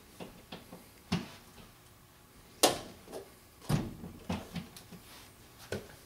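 A Siberian Husky puppy moving about and playing with a vacuum cleaner's cord, making scattered knocks and taps, the loudest about two and a half seconds in.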